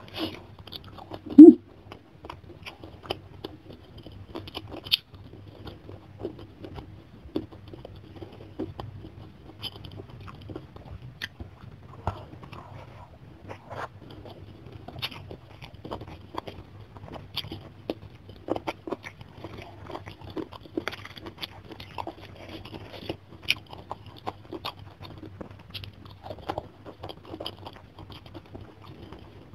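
Close-miked mouth sounds of a person eating sour-spicy fish and rice by hand: soft wet chewing and lip smacks, many small irregular clicks, with one brief louder sound about a second and a half in. A faint low hum runs under it.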